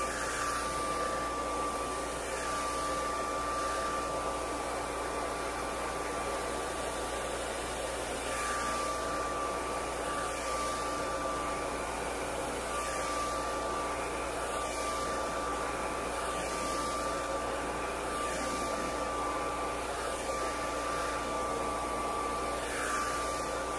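Handheld electric hair dryer running steadily while drying hair, a continuous rush of air with a steady high whine from its motor.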